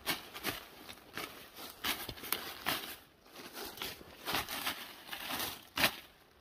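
Footsteps crunching through a thick carpet of fallen leaves and brushing through low undergrowth, in irregular steps with a short pause about three seconds in.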